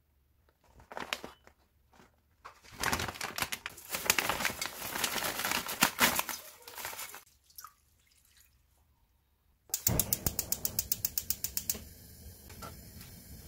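A plastic package rustling and dried gondre greens crackling as they are handled into a pot. Then water is poured in, with a run of quick glugs at first and then a steady pouring stream.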